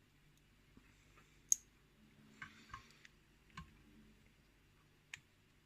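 Small metal clicks and taps from handling a lock cylinder's parts and tools during disassembly. One sharp click comes about one and a half seconds in, followed by a few softer clicks spread through the rest.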